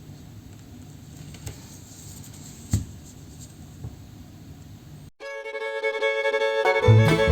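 Low hiss with a few faint clicks, then about five seconds in a preset Nokia 3.4 ringtone starts. It plays a melody of clear sustained notes, and a low beat joins near the end.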